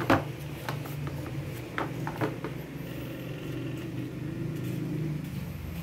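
Several sharp clicks and knocks from a Bosch GBH 2-28 DFV rotary hammer's plastic housing being handled, the loudest right at the start and the rest in the first couple of seconds, over a steady low background hum.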